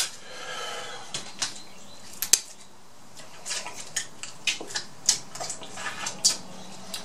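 Atlantic red crab leg shells being cracked and snapped apart by hand: a run of sharp, irregular cracks and clicks, thickest in the second half. The shells are tough enough that the eater says the legs really need scissors.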